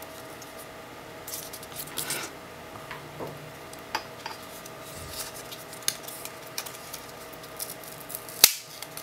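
Hands unwrapping a cable from its packaging: scattered rustling, crinkling and small taps, with one sharp loud click near the end.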